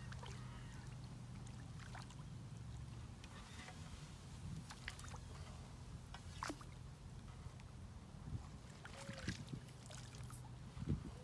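A hooked roach splashing lightly at the river's surface and a landing net dipping into the water as the fish is netted, with scattered light clicks and taps of the pole and tackle being handled over a low steady hum.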